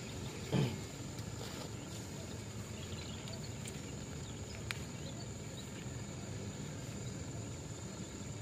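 Quiet outdoor background by open water, with a steady high-pitched hum and faint scattered chirps. About half a second in, a brief bump from a hand handling the camera; a single small click near the middle.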